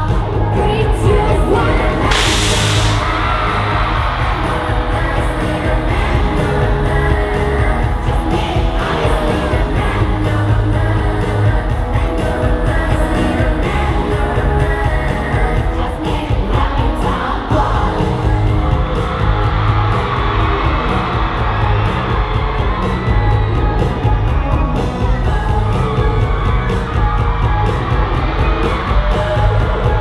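Live K-pop concert music: female voices singing over a loud backing track with a heavy, steady beat, and the audience yelling and cheering along.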